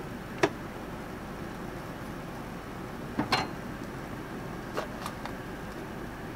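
Food prep at a cutting board: a few sharp taps and knocks from a knife and a bell pepper being handled. There is one tap about half a second in, a quick pair around three seconds and two lighter ones near five seconds, over a steady low hum.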